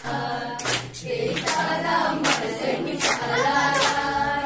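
A group of voices singing, with hands clapping along in a steady beat of roughly one clap every three-quarters of a second.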